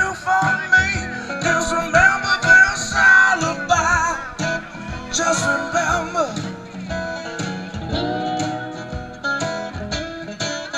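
Live acoustic blues-country music: two acoustic guitars being played, with a man singing lead.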